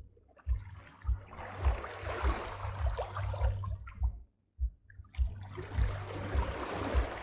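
Small waves on the Neva washing in and drawing back, two surges with a brief hush between them about four seconds in, over low thumps of wind buffeting the microphone.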